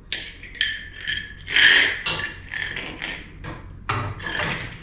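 Insulated service wire being pushed up through the hole of a plastic weatherhead, rubbing and squeaking against the plastic in several strokes, the loudest about a second and a half in and another near the end.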